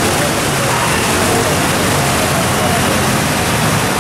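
Steady rush of floodwater, with vehicles churning through it and indistinct voices in the background.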